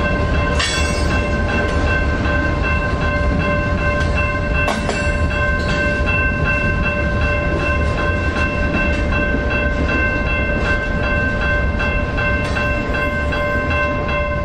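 A BNSF freight train running past with a steady low rumble. Several high ringing tones sound unbroken over it throughout.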